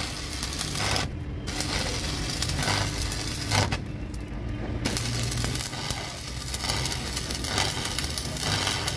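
Stick (arc) welding on a cracked steel truck rim: the electrode's arc crackles and sizzles in runs. It breaks off briefly about a second in and again for about a second near the middle, then is struck again.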